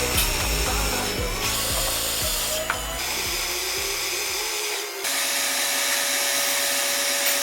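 Metal lathe running while steel parts rub against each other under pressure in friction welding, with a hissing, drill-like machine sound over background music with a steady beat. The sound changes abruptly at edits about 1.5, 3 and 5 seconds in, settling into a steady whine after the last one.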